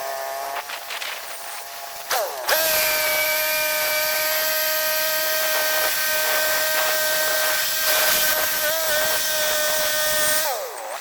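Portable band sawmill running under load for about eight seconds, the band blade cutting through a log with a steady high whine and loud hiss. Near the end it drops back to a quieter idle.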